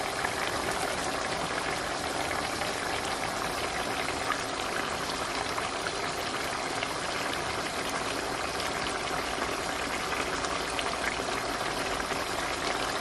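Jamaican fricassee chicken in its thick brown gravy simmering in a pan, a steady bubbling with small pops, as it finishes cooking.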